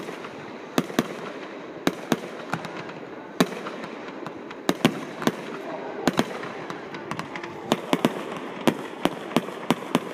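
Aerial fireworks going off: an irregular string of sharp bangs, about two a second and coming faster in the second half, over a continuous hiss.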